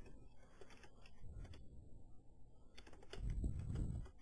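Computer keyboard keys clicking as a filename is typed, with a quicker, louder run of keystrokes about three seconds in.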